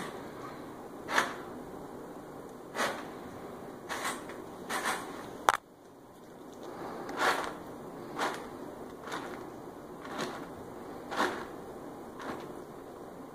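Stainless steel dog bowl of kibble scraping and knocking on a hard floor as a corgi eats from it and nudges it along. The sounds come in irregular short bursts about once a second, with one sharp knock about five and a half seconds in.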